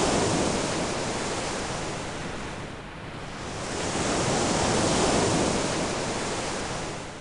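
Ocean surf: a wash of waves swelling and ebbing twice, fading out near the end.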